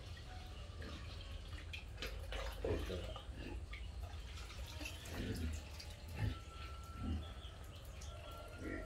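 Liquid trickling and dripping as it is poured through a funnel into a plastic bottle, over a low steady hum.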